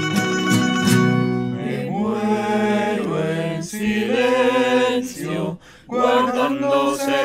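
An estudiantina ensemble of classical guitars strumming and plucking, with several voices singing over them from about two seconds in. There is a brief break in the sound about three-quarters of the way through before the singing resumes.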